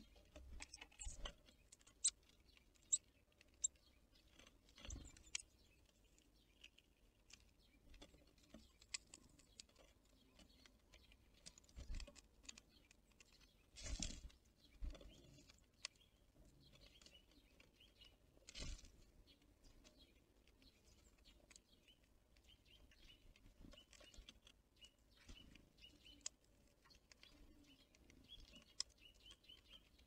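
Faint sounds of small birds at a forest feeder: scattered light taps and pecks, a few louder thumps, and thin high chirps that come more often in the second half.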